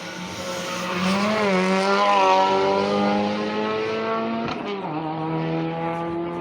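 Rally car engine under hard acceleration, pitch climbing and loudest about two seconds in as it comes past. About four and a half seconds in the pitch drops sharply with an upshift, then the engine pulls on steadily.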